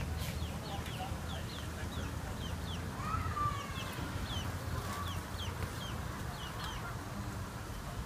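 A chick peeping over and over in short, high, falling chirps, several a second, over a low steady rumble.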